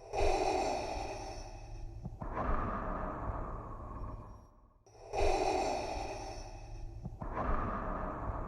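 Darth Vader's mechanical respirator breathing through the mask: two full slow breaths, in and out, each cycle about five seconds long, with a short pause before each inhale.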